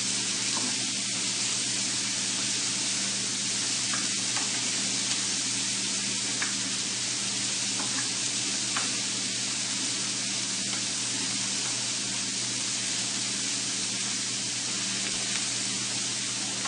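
Cut onions frying in hot oil in a pan while being stirred: a steady sizzling hiss with a few faint scattered ticks.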